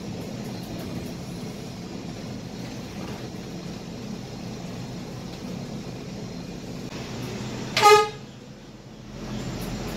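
Steady low engine and road rumble inside the cab of a Scania K320 IA bus on the move. About eight seconds in, a vehicle horn gives one short, loud toot, and the rumble dips for about a second after it.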